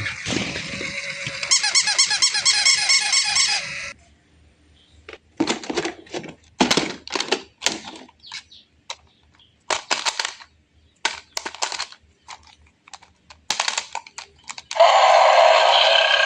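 An electronic toy's pulsing, squeaky sound for the first four seconds, then a series of irregular sharp clicks and knocks, and a loud, steady buzzing near the end.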